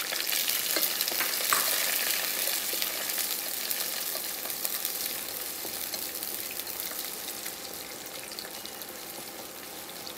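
Sautéed onions, curry leaves and dried red chillies sizzling in hot oil, stirred and scraped around the pot with a plastic slotted spatula. The sizzle is loudest at first and slowly dies down.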